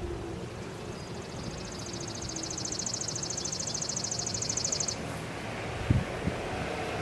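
Whelen WPS-4004 electronic warning siren ending its steady alert tone: the single tone slides lower and fades out over the first few seconds. A high, rapid trill sounds from about one to five seconds in over low wind noise.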